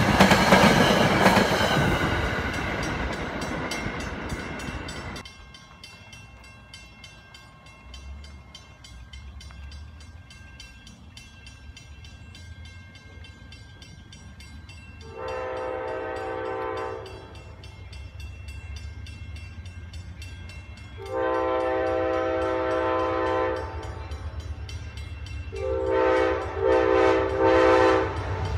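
A commuter train's coaches rumble and clatter past, and the sound stops abruptly about five seconds in. Then an approaching Amtrak P42 diesel locomotive sounds its air horn: two long blasts several seconds apart, then a few short blasts, the grade-crossing warning. A low rumble of the train grows underneath.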